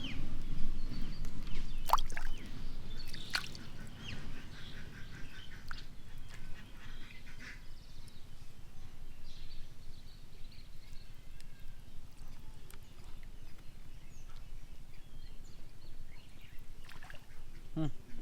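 Birds calling on and off over a low outdoor background, with two sharp clicks in the first few seconds and a low rumble that fades after about four seconds.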